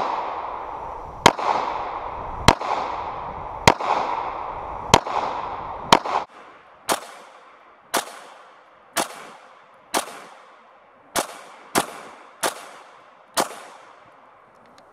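Walther PPQ M2 9mm pistol firing a string of thirteen shots, about one a second, each crack followed by a fading echo. The first few shots have longer, louder tails than the later ones.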